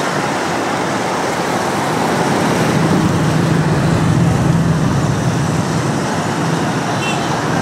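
Busy street traffic: motorbikes, cars and a tuk-tuk driving past with a steady engine and tyre noise. An engine hum swells about three seconds in as a vehicle passes close.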